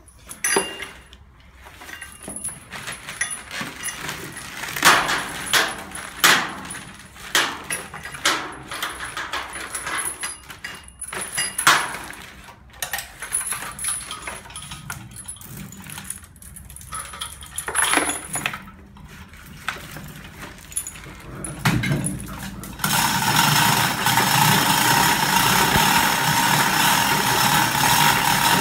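Steel lifting chain clinking, rattling and clanking as it is pulled and hooked around a plastic-wrapped engine, with several sharp metal clanks. About 23 seconds in, a steady, even machine noise with a constant tone starts.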